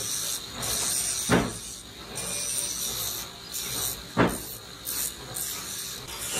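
Handheld angle grinder with a green disc grinding a steel pliers part held in a bench vise: a continuous harsh rasping grind, with two louder strokes about one and a half and four seconds in.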